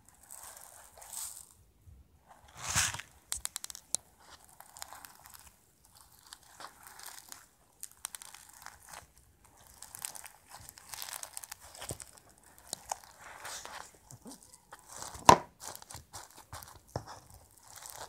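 Slime studded with small metallic beads being squeezed and kneaded by hand: many small clicks and crackles in uneven clumps a second or so long, with one sharper, louder snap about fifteen seconds in.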